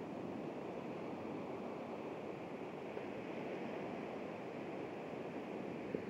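Steady rush of small surf breaking and washing up a sandy beach.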